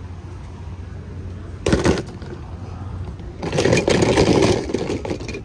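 Race car engines running, with a short loud burst about two seconds in and a longer, louder stretch from about three and a half to four and a half seconds.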